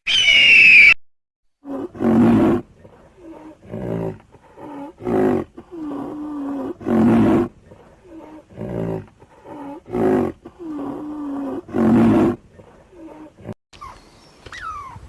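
Lion roaring in a long bout: a series of deep, loud roars about one to two seconds apart, with shorter, lower grunting calls between them.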